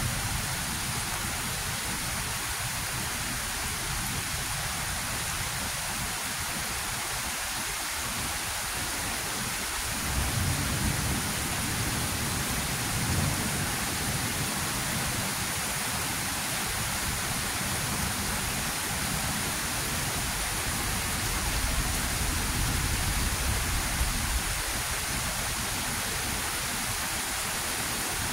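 Heavy rain falling steadily during a thunderstorm, with thunder rumbling low about ten seconds in and again about twenty seconds in.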